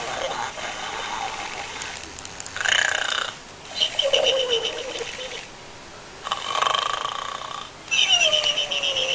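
Pig snoring: repeated raspy snoring breaths, a new one every second or two, two of them carrying a whistle-like tone that falls in pitch.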